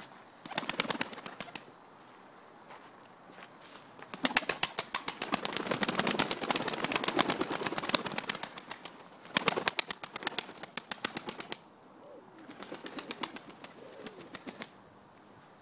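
Domestic pigeons: three bursts of rapid wing-flapping, the longest running for about four seconds, with low pigeon cooing near the end.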